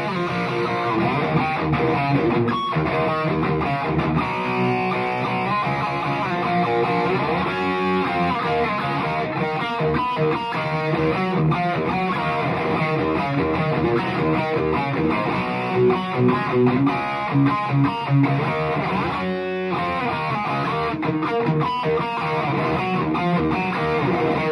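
Gibson Les Paul R9 electric guitar played through a 3rd Power Kitchen Sink amp, running through rock riffs. A run of accented chord hits comes about two-thirds of the way in, followed by a brief break.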